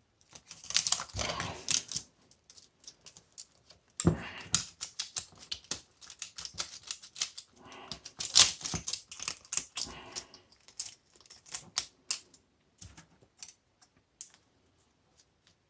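Hand tools prying and scraping at the metal parts of a washing machine motor being dismantled: irregular sharp metallic clicks, knocks and short rasps, busiest in the first ten seconds and thinning out near the end.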